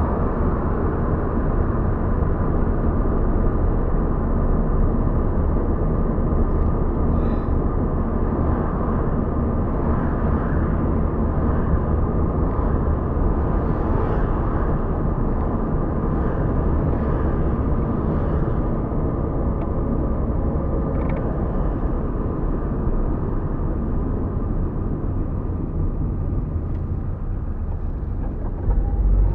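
Steady road and engine noise inside the cabin of a car driving at road speed, easing off slightly near the end.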